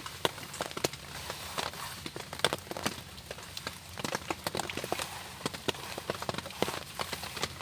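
Small fire of dry twigs and split sticks catching and crackling, with sharp irregular cracks several a second as sticks are laid onto it by hand.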